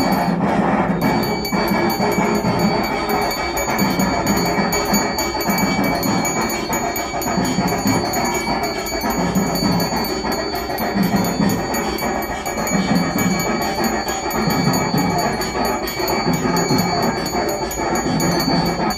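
Temple bell ringing rapidly and without pause, its ringing tones held steady by quick repeated strikes, over a low pulse about once a second.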